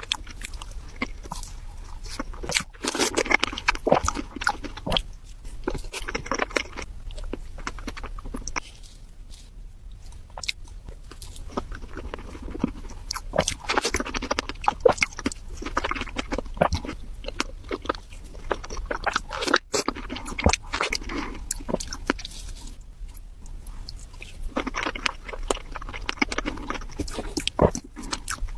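A person biting and chewing food close to the microphone, with crunching, in bouts separated by short pauses.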